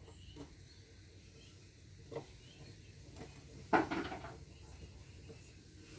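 A few faint clicks and taps, then one louder metallic clunk with a short clatter just past halfway: hands and tools handling the solar inverter's casing as the teardown begins.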